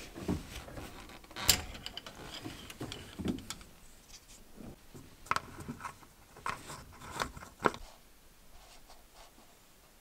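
Scattered clicks, knocks and scrapes of hands and parts being handled at the gearbox filler in the engine bay of an amphibious ATV, with two sharper clicks, one about a second and a half in and one near eight seconds; it quiets down near the end.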